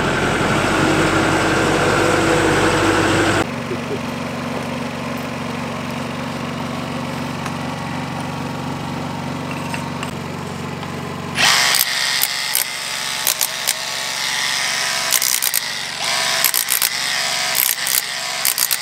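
Power tool working on a thick sandstone wall, in loud bursts that start and stop, while an engine runs steadily underneath. The tool cuts a passage through the wall for the drain and water line.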